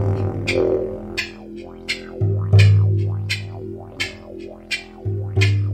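Didgeridoo drone with shifting overtones, swelling in low pulses about every three seconds, over a steady beat of sharp percussive strikes from the shamanic drum accompaniment.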